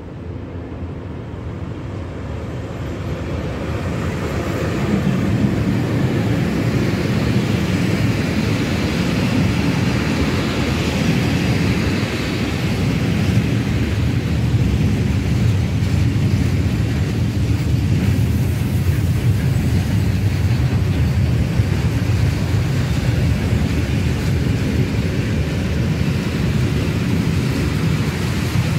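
Freight train hauled by an ET42 twin-section electric locomotive, approaching and passing close by. It grows louder over the first few seconds, then settles into a steady rumble of wheels on rails as a long line of open freight wagons rolls past.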